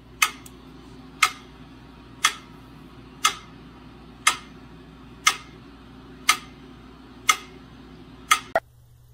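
Mechanical metronome ticking steadily about once a second, over a low steady hum. Near the end come two quick clicks, then it stops.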